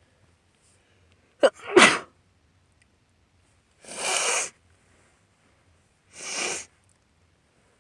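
A woman's allergy sneeze, loud and sharp, about a second and a half in, followed by two sniffles about two seconds apart.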